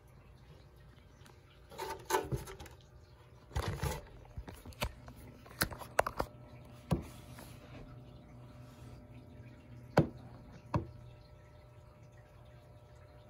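Scattered sharp clicks and taps with a couple of brief rustles, the sound of handling, over a low steady hum. The loudest taps come about halfway through and again near the end.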